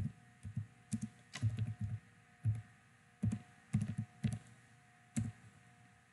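Typing on a computer keyboard: irregular clusters of keystrokes with pauses between them, the last about five seconds in.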